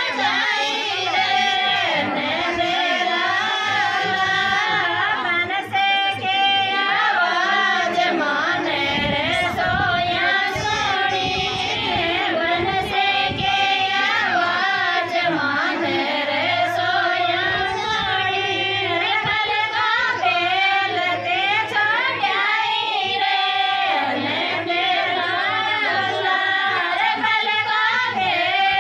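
Women singing a Krishna bhajan, a Rajasthani devotional folk song, into microphones; the ornamented melody runs on without a break.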